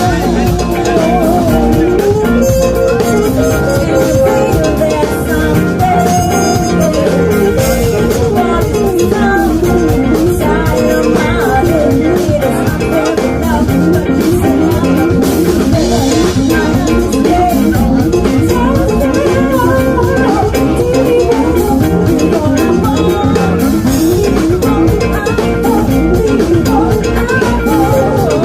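Music: a band with drums and pitched instruments playing steadily, with a wavering melodic line on top.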